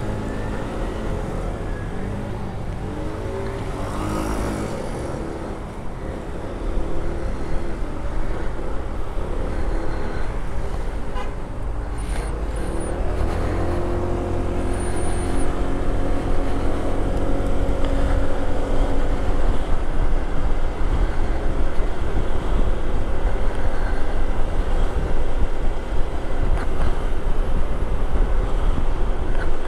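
Honda PCX125 scooter's single-cylinder engine pulling and accelerating, its pitch rising in places, under wind noise on the helmet microphone that grows louder as speed builds, with surrounding road traffic.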